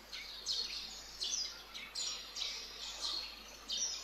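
A bird chirping over and over, short high calls about two a second.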